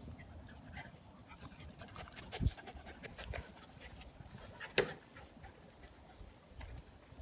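A young dog panting, with scattered light clicks and two louder short knocks, about two and a half and nearly five seconds in.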